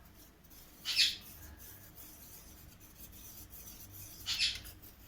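Two short scrapes about three seconds apart: a spoon stirring arrowroot powder into water to make a slurry for thickening the soup.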